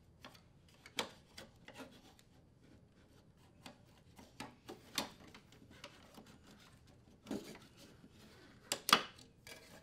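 A condenser fan motor's plastic frame being tilted and worked into place against the refrigerator's metal base and tubing: soft rubbing and scraping with a few sharp clicks and knocks, the loudest about a second in, about five seconds in and near the end.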